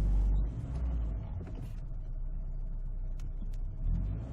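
Ford Ranger pickup's engine rumbling at low revs under the heavy load of a gooseneck trailer carrying a backhoe, the clutch being slipped to move it. The engine is loud for the first half second, eases off, and picks up again near the end, with a couple of light clicks in between.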